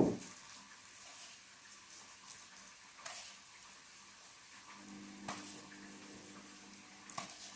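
Faint rustle of salt and pepper sprinkled by hand over raw chicken skewers, with a few light clicks. A low steady hum comes in about two-thirds of the way through.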